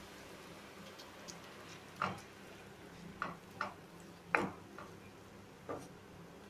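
Wooden spatula knocking and scraping against a non-stick pan, about six short strokes spread over several seconds, as whole pointed gourds are turned in their oil-and-spice gravy, over a faint steady hum.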